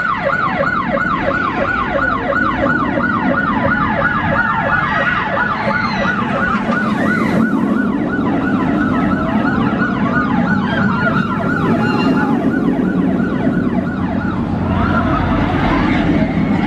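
Electronic yelping siren, a fast rising and falling wail repeating about two to three times a second over a low rumble, fading out about twelve seconds in.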